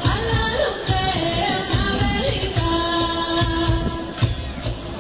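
Background song with a singing voice over a steady, rhythmic beat.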